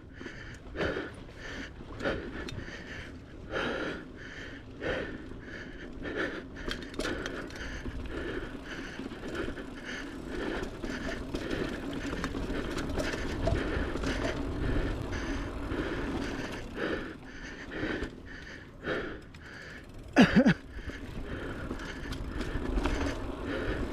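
Mountain bike ridden fast along a dirt trail: tyres rolling over rough ground, with frequent rattles and knocks from the bike over bumps and roots, and the rider breathing heavily. There is a short vocal grunt about twenty seconds in.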